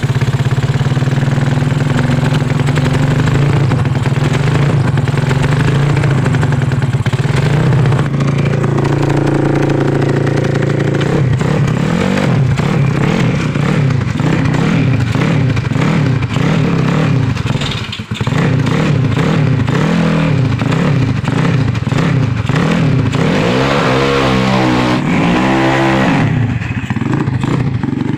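Bored-up 200cc Yamaha Mio Soul scooter engine, a single-cylinder four-stroke fitted with a 65.5 mm Tiger piston, running steadily and then revved up and down again and again from about twelve seconds in.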